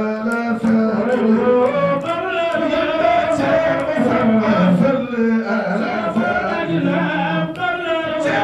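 A man singing an Islamic devotional chant solo into a microphone, in long held notes that waver and slide from one pitch to the next.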